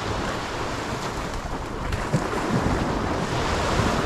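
Small surf washing onto a sandy beach, with wind buffeting the microphone in gusts.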